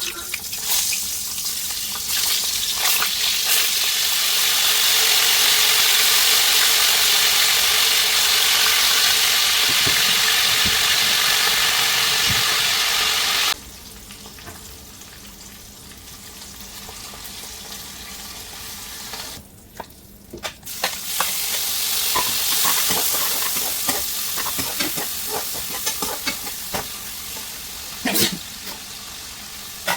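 Parwal curry frying in a pan: a steady sizzle of hot oil, stirred with a utensil that clicks and scrapes against the pan. The loud sizzle drops abruptly about halfway through to a quieter one, then rises again, with more scrapes near the end.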